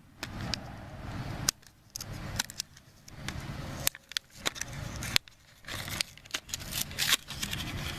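A new spark plug's packaging being torn open and handled: irregular rustling with scattered sharp clicks and ticks.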